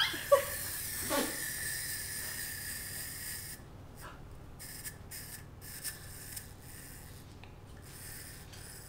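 Small clockwork motor of a wind-up bug toy whirring with a steady high buzz, then cutting off suddenly about three and a half seconds in as it runs down. Faint clicks of the toy being handled follow.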